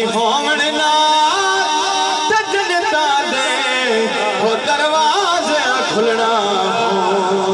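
A man singing a Punjabi naat (devotional kalam) into a microphone over a PA system, in long, ornamented phrases whose pitch glides and turns, over a steady held drone.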